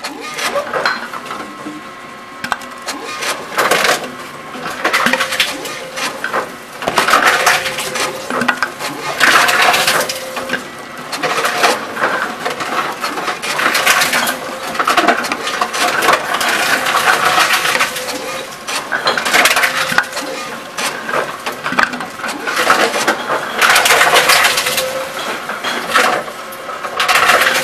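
Tomra T-Series reverse vending machine taking in plastic bottles and crushing them: a run of loud crackling crunches, one every two to three seconds, over a steady hum.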